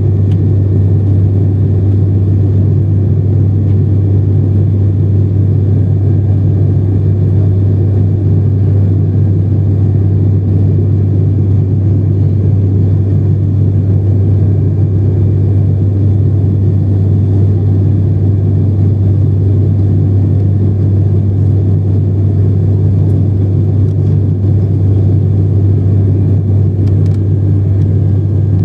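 Cabin noise of an ATR 72 turboprop airliner in flight, heard from a window seat beside the propeller: a loud, steady low propeller drone with a faint high whine, unchanging throughout.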